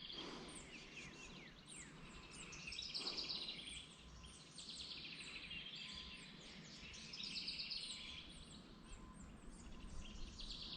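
Birds chirping and trilling: repeated bouts of high, quick notes several times over, faint against the outdoor background.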